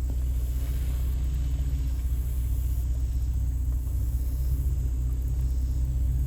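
Vehicle engine running at low, steady revs: a deep, even drone.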